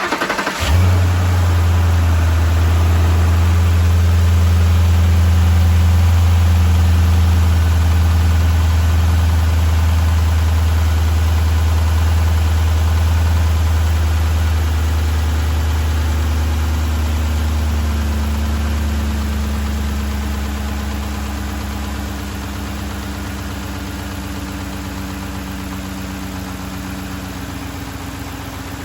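Ford 5.4L three-valve V8 in a 2008 F-250 Super Duty cranking and catching, then idling steadily on fresh oil. The idle is loudest just after it starts and slowly settles lower and quieter over the second half.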